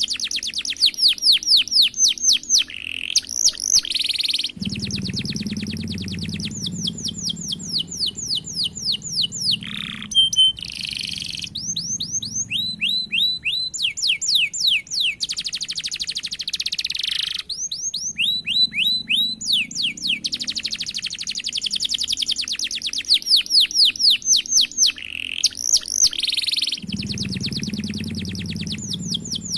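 Domestic canary singing long rolls: fast runs of rapid, repeated falling notes, shifting from one trill to the next, with a few short whistled notes between phrases. A low background rumble comes and goes beneath the song.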